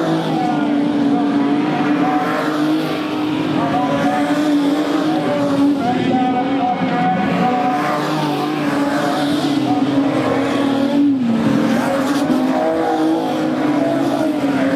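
Engines of a pack of production sedan race cars running hard as they lap a dirt oval and pass close by. It is a loud, continuous drone whose pitch wavers as the cars go past, dipping briefly about eleven seconds in as a driver lifts off.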